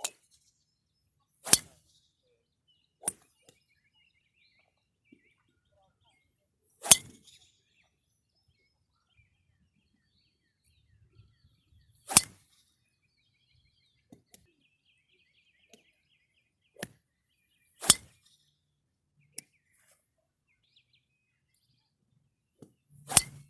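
Golf driver striking golf balls: five sharp cracks at impact, one about every five seconds, with fainter clicks in between. Faint bird chirps can be heard between the shots.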